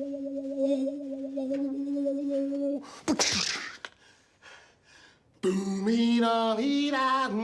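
Vocal mouth sound effects: a steady hummed drone for almost three seconds, then a short sharp hissing burst, a brief near-quiet gap, and from about two seconds before the end pitched vocal tones that step up and down.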